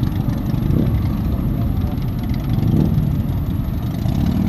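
Motorcycles riding past one after another at low speed, their engines running in a steady mix of engine sound.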